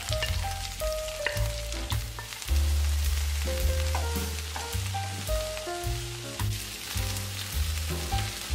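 Sliced green peppers, onion and garlic sizzling in hot oil in a frying pan as they are tipped in and stirred with a wooden spoon. Background music with a melody and a steady bass line plays throughout.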